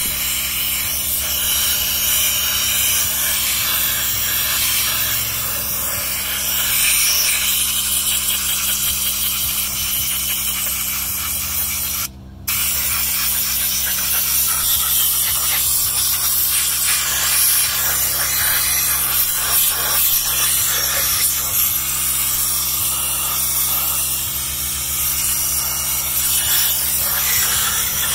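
Compressed-air blow gun hissing steadily as it blasts caked dirt out of an electric motor's stator windings. It cuts out for a moment about twelve seconds in, with a steady low hum underneath throughout.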